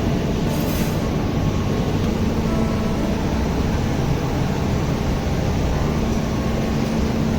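Steady, loud machinery noise: a dense low rumble under a constant hum, typical of electric pumps and motors running in a chiller plant room.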